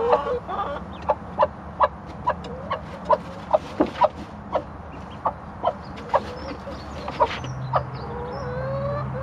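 Mother hen clucking to the duckling she is raising: a steady run of short clucks, about two to three a second, that stops a little after seven seconds.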